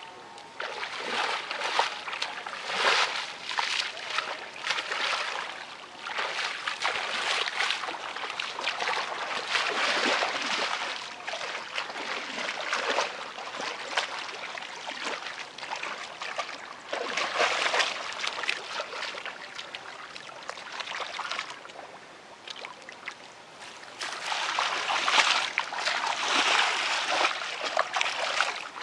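Water sloshing and splashing as feet wade through shallow, muddy paddy water, in uneven surges that come and go every second or two.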